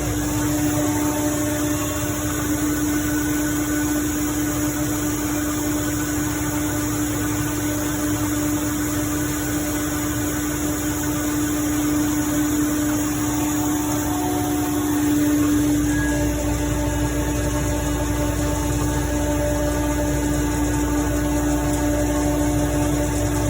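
Ingersoll Rand 15 HP rotary screw air compressor running steadily with a constant hum. A deeper rumble comes in about fifteen seconds in.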